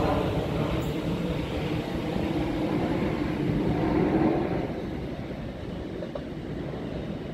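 Freight train of open wagons rolling away along the track, a low rumble that fades as it recedes, dropping off noticeably about four and a half seconds in.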